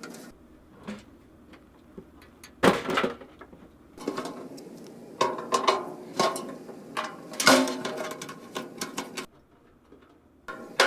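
Clicks, knocks and scrapes of a metal computer case and its parts being handled as a stuck piece is worked loose, with a few sharper knocks about three and seven seconds in.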